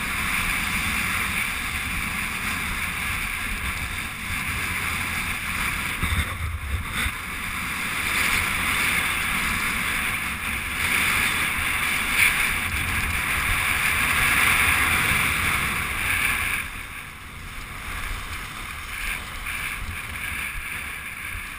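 Skis hissing and scraping over groomed snow during a downhill run, with wind buffeting the microphone. The rush eases about three-quarters of the way through as the skiers slow down.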